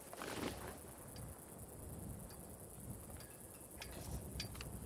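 Quiet outdoor ambience: a low background with a short rush of noise just after the start, then scattered faint ticks and brief chirps, insect-like.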